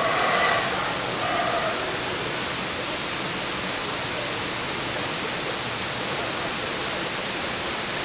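Steady rushing of falling water from waterfalls, an even hiss that does not change, with a faint brief pitched sound over it in the first second or two.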